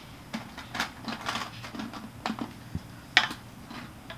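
Hard plastic toy pieces clicking and rattling against each other and a large plastic jar as a small child rummages through it, in an irregular run of clatters with one sharp click about three seconds in.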